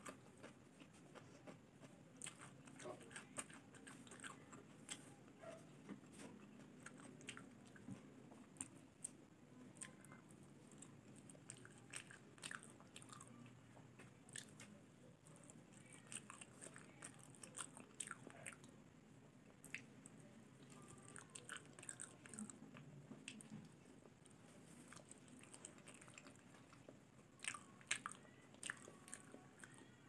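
Quiet close-miked eating sounds: soft chewing, wet lip smacks and small mouth clicks, scattered irregularly, as a person eats a peeled banana.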